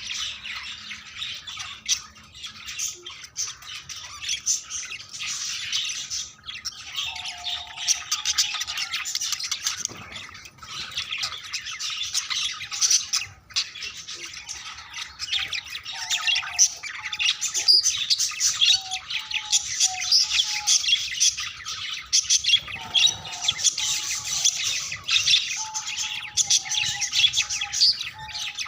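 Budgerigars chattering and warbling without a break: dense, rapid chirps and squawks. Short lower notes break in now and then from about seven seconds on.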